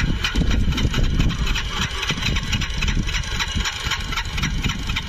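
Motorcycle engine running steadily at idle.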